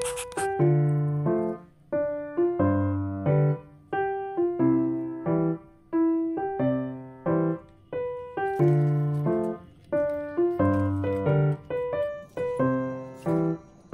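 Background piano music: single notes struck and left to fade, in a slow melody over low bass notes.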